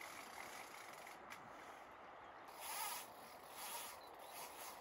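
Faint steady rush of river water, with two brief louder hissing swells about three and four seconds in.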